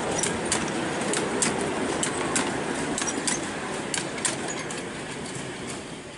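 Wagons of a 7¼-inch gauge miniature railway train rolling past on the track, their wheels rumbling and clicking over the rail joints a few times a second. The sound fades away about four seconds in as the end of the train passes.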